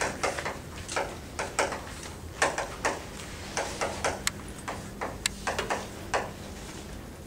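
Chalk writing on a blackboard: an irregular run of quick taps and short scratchy strokes as letters are written.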